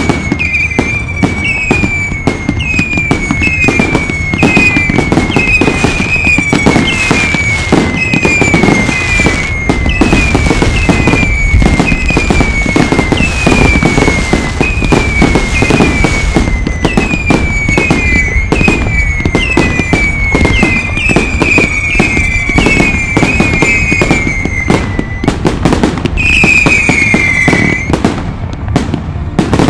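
Fireworks display firing a continuous barrage of bangs and crackling. Through it runs a string of whistles falling in pitch, about one a second, with a longer, louder whistle near the end.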